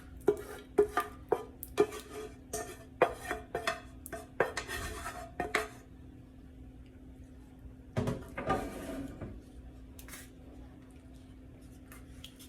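A kitchen utensil clanking and scraping against a pot as meat sauce is spooned out over ravioli in a baking pan. There is a quick run of knocks over the first six seconds and another short burst about eight seconds in.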